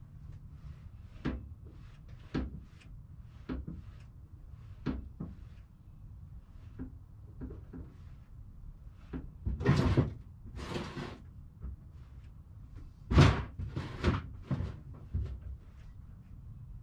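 Scattered clicks and knocks of hands-on work on a car, with two louder bursts of clatter, one a little past the middle and one near the end.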